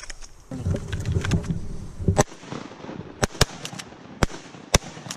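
Rustling of reeds and camouflage clothing as hunters rise in the blind, then a quick string of about five shotgun shots at flying ducks, the first about two seconds in and the loudest. The volley downs two ducks, a double.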